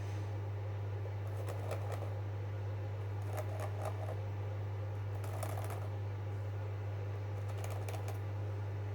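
Steady low hum with four short bouts of scratching and clicking handling noise.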